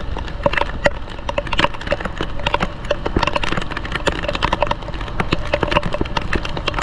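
Heavy rain drumming on a GoPro's protective cover: quick, irregular taps of raindrops over a low steady rumble from the moving ride.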